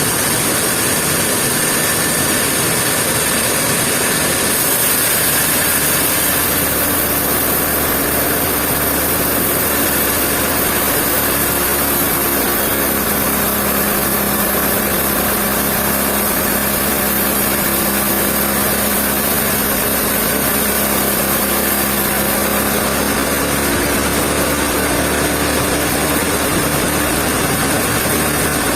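Sawmill machinery running steadily: a constant, loud mechanical noise with a strong high hiss, and a faint steady hum that comes in for about ten seconds in the middle.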